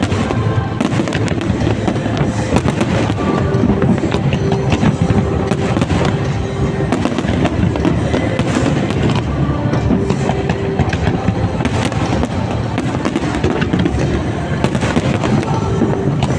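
Aerial fireworks going off in rapid succession: many sharp cracks and bangs over a continuous rumble, with music playing alongside.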